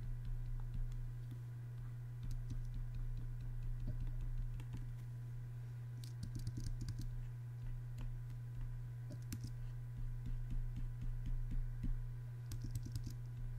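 Scattered soft clicks from working a computer, bunched in quick runs about six, nine and twelve and a half seconds in, over a steady low hum.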